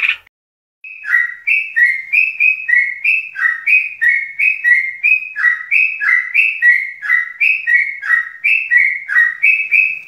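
Yellow-vented bulbul (trucuk) singing its long continuous 'ngeropel' song: an unbroken run of short notes alternating high and low, several a second. The song starts about a second in after a brief pause.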